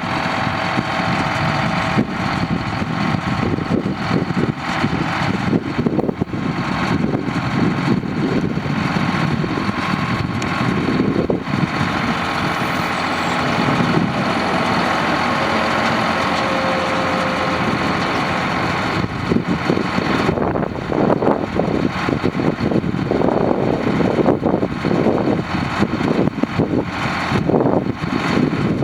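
Engine of a truck-mounted well drilling rig idling steadily.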